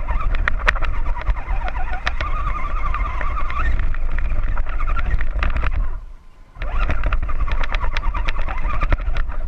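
Scale RC crawler's electric motor and gears whining as it drives, heard from the camera on the truck, the pitch wavering with the throttle, with many sharp clicks and a low rumble underneath. The sound drops out for about half a second around six seconds in as the throttle is let off, then picks up again.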